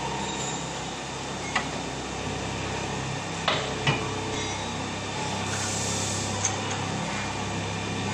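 Factory machinery humming steadily, with a few sharp metallic knocks as a jumbo roll of film is slid onto the machine's unwind shaft, and a short hiss of air a little past the middle.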